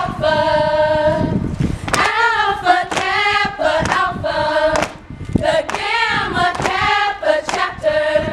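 A group of women singing a chant together in unison, punctuated by sharp percussive hits in time with the routine.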